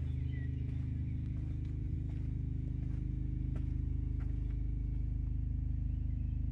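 Site generator's engine running steadily, a low hum with several even tones stacked together, and a few faint clicks over it.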